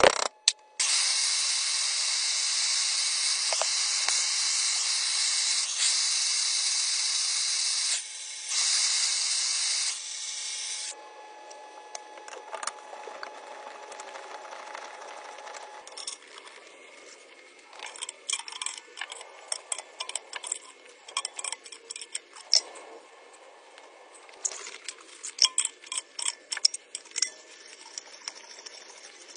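A loud steady hiss for about ten seconds, breaking off briefly about eight seconds in. Then quieter scraping and scattered light metal clinks as copper fittings and pipe are cleaned and handled.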